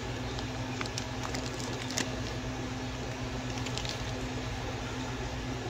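Steady low hum of running aquarium equipment, with a few light clicks between about one and two seconds in and again near four seconds.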